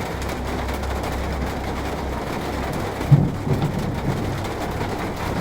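Heavy rain pouring down in a thunderstorm, a steady hiss over a low rumble, with one brief loud low thump about three seconds in.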